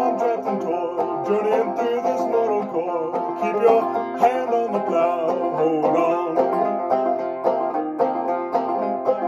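Banjo played clawhammer style, a steady rhythm of picked notes.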